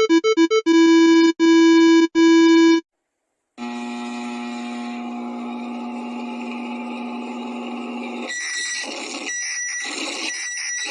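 Synthesized emergency-alert-style electronic tones: a quick run of alternating beeps, then three long beeps, about a second of silence, a long steady buzzing tone, and from about eight seconds in a choppy, pulsing alarm tone.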